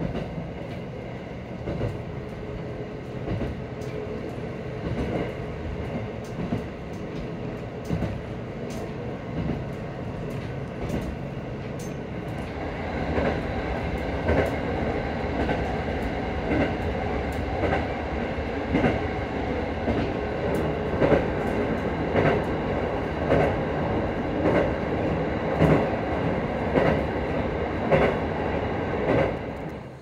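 Diesel railcar running along the line, heard from inside the cabin: a steady rumble with a regular clickety-clack of the wheels over rail joints, louder from about halfway through.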